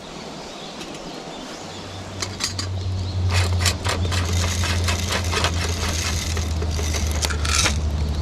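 Wood campfire crackling and snapping in irregular sharp pops, over a steady low hum that comes in about two seconds in.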